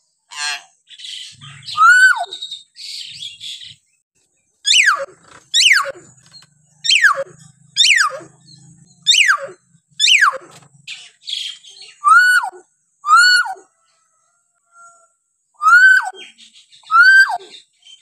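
Hill myna calling: a run of about a dozen loud, clear calls spaced roughly a second apart, each dropping steeply in pitch, some with a short upward lift first. Harsher, scratchy chatter fills the first few seconds.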